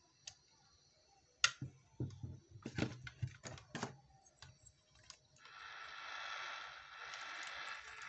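Clicks and knocks of the plastic radio casing being handled, then from about five and a half seconds in the FM radio receiver's speaker gives a steady hiss of static (white noise) that stops suddenly at the end. The hiss shows the repaired receiver is powered and working, only not tuned to a station.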